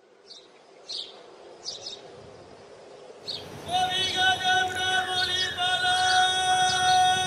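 Birds chirping, then about halfway through a long steady held tone with many overtones comes in and becomes the loudest sound, with a short break partway.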